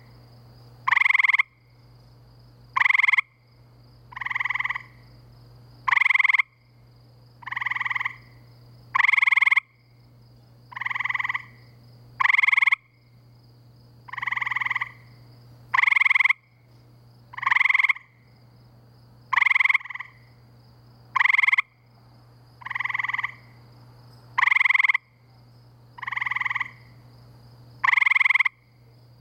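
Male gray treefrogs giving their trilled mating calls, each call under a second long, one about every second and a half. A louder and a softer caller take turns. A steady low hum runs underneath.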